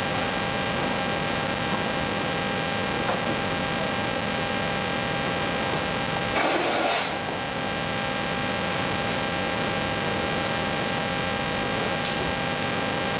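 Steady hiss with a faint electrical hum from the recording's background noise in a silent room, and a brief soft rustle about six and a half seconds in.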